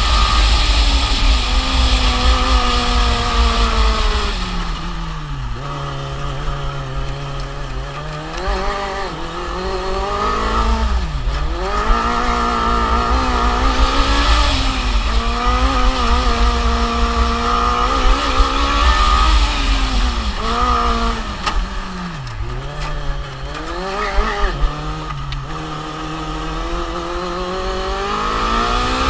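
Formula Student race car heard from on board, its motor pitch climbing under acceleration and dropping sharply three times as it slows for corners, with heavy wind rumble on the microphone.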